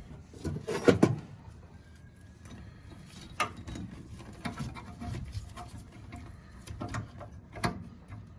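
Hands working on a furnace with tools and metal parts: a series of knocks, clicks and clatters, the loudest about a second in, with lighter handling noise between them.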